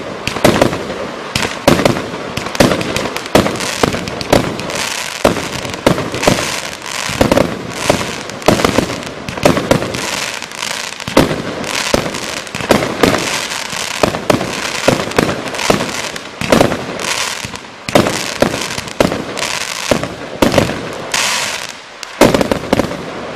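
A 146-shot firework cake (LF-25146-1 '2 Mins Potted Cake') firing its tubes in rapid succession. Sharp bangs of launches and bursting shells come two to four a second over a steady hiss. The firing ends near the end.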